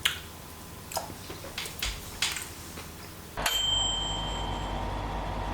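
A few soft clicks, then about three and a half seconds in a single bell-like ding that rings on briefly over a steady hum.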